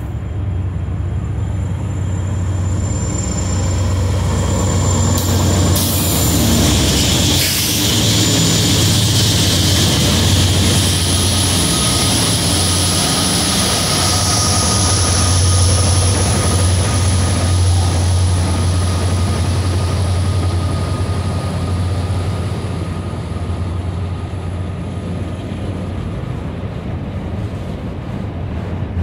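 Norfolk Southern freight train's diesel locomotives passing close at low speed: a deep, steady engine rumble with a broad rushing noise and a thin high whine over it, loudest in the first half. Then autorack freight cars rolling past, the sound easing off.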